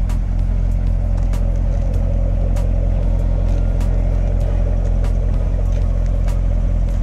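Car engine idling steadily with a deep, even hum and no revving.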